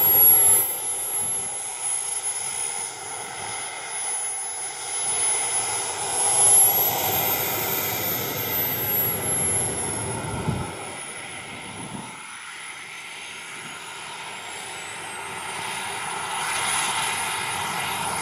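Small gas turbine engines of a radio-controlled Me 262 model jet whining at taxi power. The high-pitched whine rises and falls back about seven seconds in as the throttle is blipped, then climbs again near the end.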